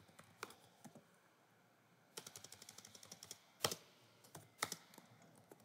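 Quiet computer keyboard typing: a few scattered keystrokes, a quick run of keys about two seconds in, then a few sharper single clicks.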